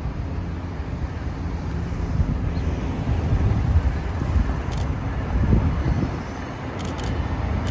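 Steady low rumble of city traffic, with a Brightline passenger train approaching along the track from a distance.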